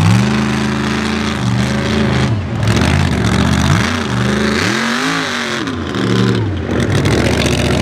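A mega mud truck's engine revving up and down in surges as the truck drives through mud. The pitch climbs and drops several times, with the highest, sharpest rev about five seconds in.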